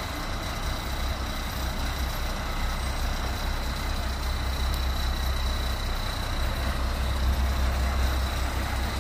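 Heavy truck engine running with a steady low rumble, growing a little louder in the second half.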